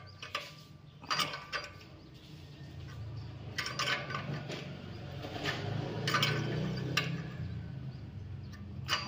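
Steel spanner clicking against the hex of a new oxygen sensor as the sensor is tightened into the exhaust manifold: a handful of separate sharp metallic clicks, with a low steady hum underneath.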